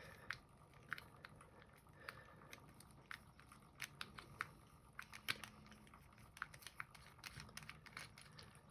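Faint, scattered small clicks and scrapes of a screwdriver working a tight screw out of a small pin tumbler lock's metal body.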